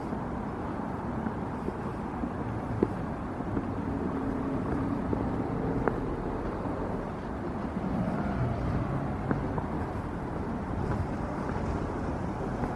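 Street ambience: a steady low rumble of road traffic mixed with wind on the microphone, with a few faint clicks.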